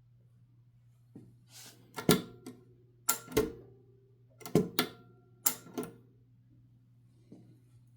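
1969 Adler J5 manual typewriter being worked by hand: a handful of sharp mechanical clacks and snaps, several in quick pairs, some leaving a short metallic ring.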